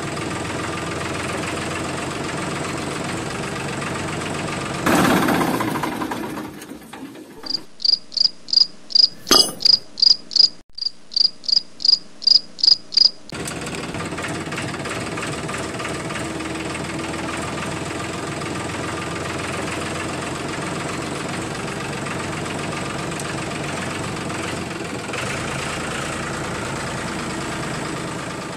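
Diesel tractor engine idling steadily. About five seconds in it is broken by a louder burst, then by a run of high, evenly spaced chirps, about two or three a second, for some six seconds. The engine sound then carries on.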